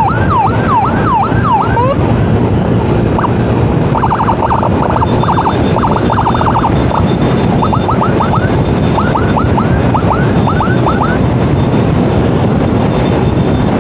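Electronic emergency siren wailing in quick falling sweeps, switching to a rapid yelp about four seconds in, then back to sweeps, stopping about eleven seconds in. Steady motorcycle riding noise runs underneath.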